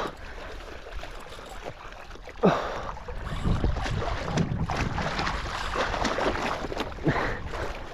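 Wind buffeting the microphone over water slapping against a paddleboard's hull, with a sudden loud thump about two and a half seconds in.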